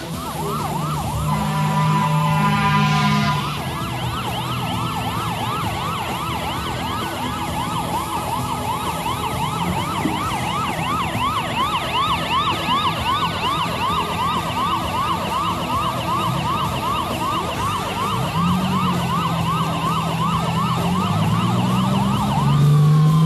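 Fire engine's siren on a fast yelp, sweeping up and down about three times a second, with a horn blast about one to three seconds in. Near the end the siren drops into a falling glide.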